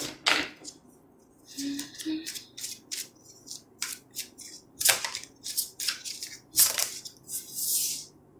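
Tarot cards being shuffled and drawn by hand: a run of quick papery snaps and flicks, with a longer sliding, riffling hiss near the end as a card is laid down on the table.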